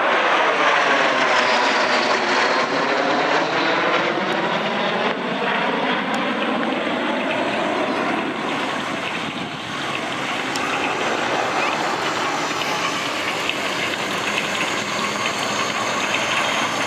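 L-39 Albatross jet trainers flying past in formation: a loud, sustained jet roar with a sweeping whoosh in the first several seconds as they pass.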